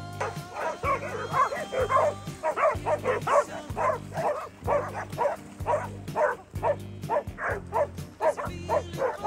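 Dogs barking excitedly at a big inflatable exercise ball in a fast, unbroken string of sharp barks, about two or three a second, over background music.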